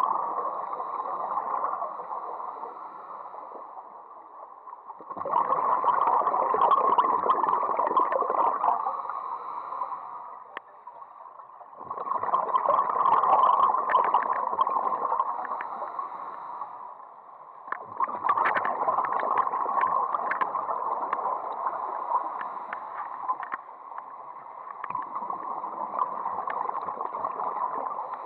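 A diver's exhaled bubbles through an underwater camera housing: bursts of gurgling, crackling bubbles about four seconds long that return roughly every six seconds, in step with breathing, with quieter water noise between them.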